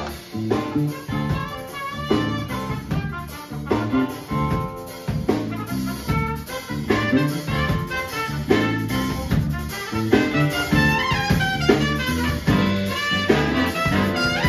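A jazz big band playing swing live, the saxophone section, trombones and trumpets sounding together. Softer for the first few seconds, then swelling louder.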